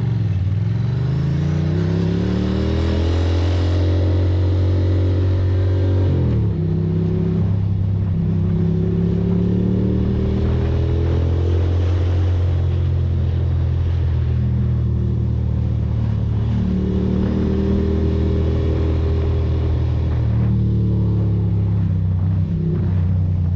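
Ducati Monster's L-twin engine pulling away under throttle, its pitch climbing for about six seconds before a drop at a gear change, then running on at cruising speed with the revs rising and easing a few times.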